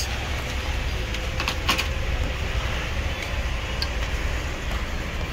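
Steady low background rumble, with a few light clicks and knocks as a motherboard is handled.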